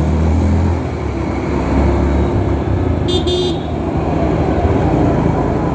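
Rumble of a Yamaha motorcycle riding in slow city traffic, with wind on the microphone. A vehicle horn toots twice in quick succession about three seconds in.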